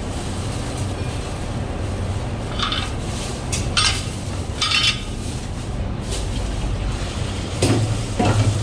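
Thin plastic carrier bag rustling and crinkling in short bursts as a takeaway box is packed into it, over a steady low background hum.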